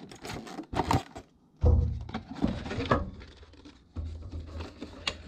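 Cardboard and clear plastic packaging being handled: the plastic sleeve crinkles and the box flaps are opened, with scattered clicks and a heavier thump about a second and a half in.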